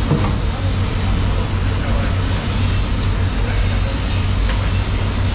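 Steady low rumble of running machinery with a thin, steady high whine above it.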